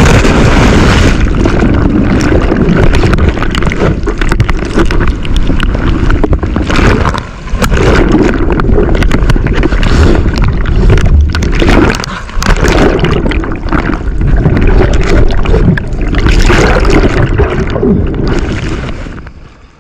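A breaking wave swamps a sea kayak and its camera: loud, churning white water with gurgling, easing briefly twice.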